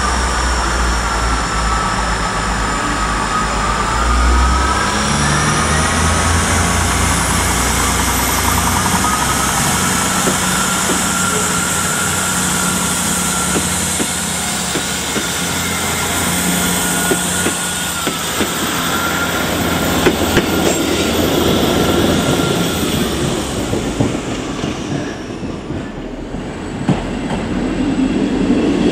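Class 159 diesel multiple unit pulling away and passing close by: its diesel engines rev up a few seconds in, with a high squealing tone over the running. In the later part its wheels clack over the rail joints and points as it moves off.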